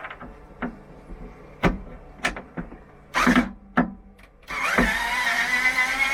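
A few knocks and clunks of things being handled, then about halfway through a handheld electric power tool starts up and runs steadily, its motor whine climbing slowly in pitch.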